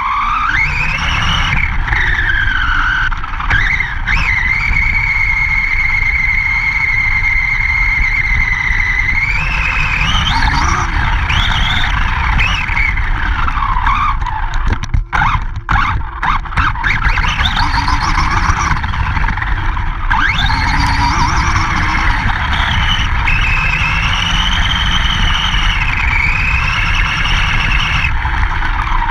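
Motor of a 1/10-scale Redcat RC monster truck whining as it drives, the pitch rising and falling with speed and held high for a few seconds in the first third, with a short dropout near the middle. Underneath runs a steady low rumble from the truck racing over grass.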